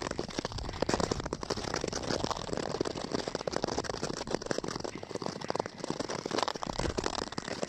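Nordic skate blades crunching and scraping over snow-covered natural lake ice, a dense crackle of tiny clicks.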